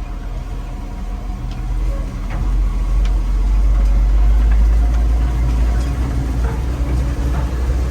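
Heavy diesel farm engine running steadily, a deep hum that grows louder about two and a half seconds in and then holds.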